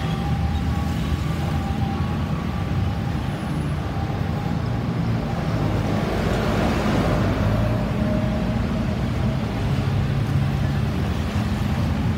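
Steady low rumble of engines in slow city traffic. In the first few seconds a faint two-tone siren alternates between two pitches, from an approaching rescue pickup.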